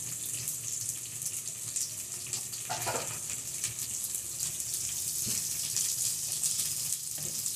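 Freshly added sliced onions, with green chillies, garlic and ginger, frying in a little oil in a pan: a steady sizzling hiss as they are stirred.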